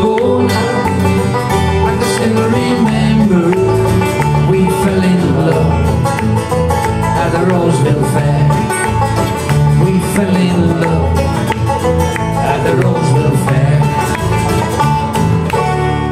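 Live folk band playing an instrumental passage on acoustic guitar, electric bass and banjo, with no singing.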